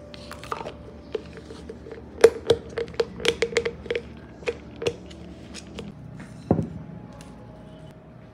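A utensil tapping and clinking against dishware in a run of sharp taps, quickest about two to four seconds in, then a few scattered ones.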